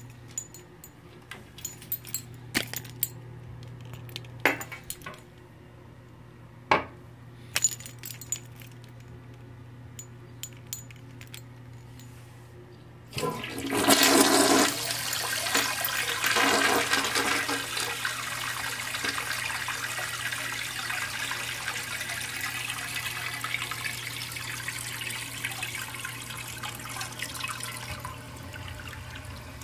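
A few scattered clicks and knocks, then about 13 seconds in a 1990 American Standard Cadet toilet flushes: a sudden loud rush of water into the bowl, settling into a steady swirling gush as the bowl drains.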